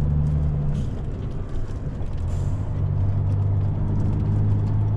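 Semi-truck's diesel engine running at low speed, its pitch stepping down about a second in and back up a little midway, with scattered light knocks and rattles.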